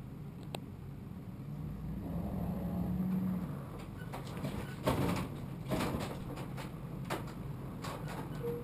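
A truck engine running low and steady, its pitch rising for about a second between two and three seconds in, as it pushes a Chevy 3500 bucket truck along. Several sharp knocks and clunks follow about halfway through.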